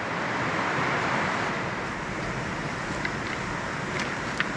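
Steady rush of a fast-flowing stream running over rocks, with a few faint clicks near the end.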